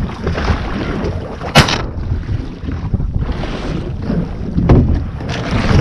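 Wind buffeting the microphone and choppy water slapping against a low layout boat, with a few sharp knocks, the loudest about a second and a half in.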